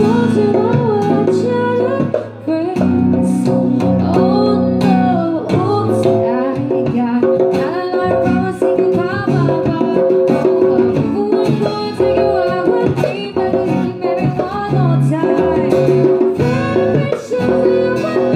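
Live acoustic band music: a woman sings a melody into a microphone over strummed guitar and a hand drum played with the hands.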